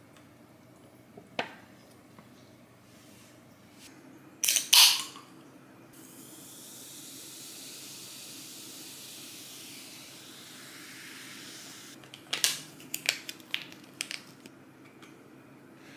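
A drink can is cracked open with a sharp pop about four and a half seconds in. Then a peach drink is poured from the aluminium can into a glass with a steady hiss for about six seconds. Near the end a small packet is torn and crinkled open with a few sharp crackles.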